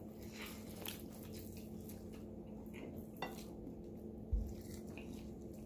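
Hands tearing apart a roasted Cornish hen and a mouth biting into the meat: faint scattered clicks and small wet handling sounds. There is a sharper click a little past three seconds in and a low thump about four seconds in.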